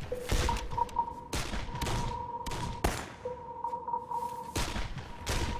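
Scattered gunfire, about a dozen irregular shots and thuds with one sharper crack about three seconds in, over a steady high-pitched tone.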